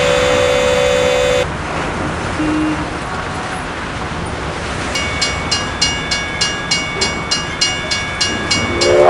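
Street traffic sound effects: a car horn honks once, held for about a second and a half, over a steady hum of traffic. From about five seconds in, a bell rings in quick, even strokes, about four a second.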